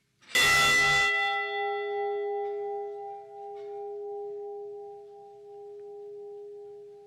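A large bell struck once. The clang gives way to a long ring that fades slowly with a gentle waver. It is tolled in memory of one lost crewman.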